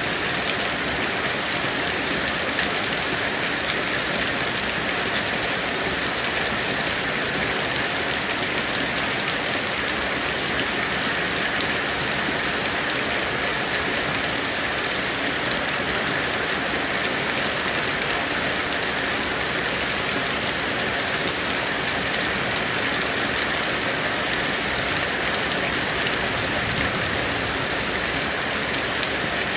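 Heavy rain falling steadily, an even hiss with scattered individual drops pattering on surfaces.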